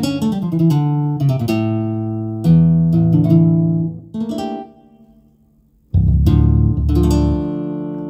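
Sampled guitar voice from an instrument sound set, playing a run of plucked notes and chords. The notes die away about four and a half seconds in, and a loud low chord comes in about a second and a half later and is held.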